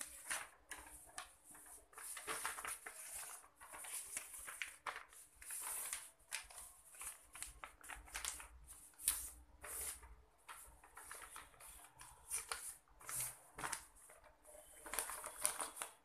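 Sheets of paper rustling and crinkling in irregular bursts as they are folded by hand and pressed into a plastic box.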